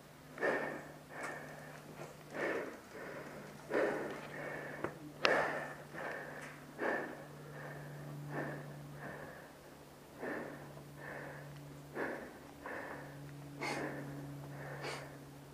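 A person breathing heavily through the nose close to the microphone, a short sniff-like breath about every second, over a faint steady low hum.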